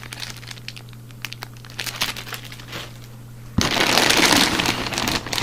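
Plastic parts bags crinkling as they are handled, with scattered small clicks and rustles, then a louder spell of crinkling starting about three and a half seconds in and lasting nearly two seconds.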